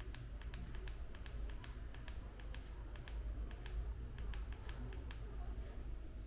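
A quick, irregular run of light, sharp clicks, about two dozen in five seconds, stopping near the end, over a faint low hum.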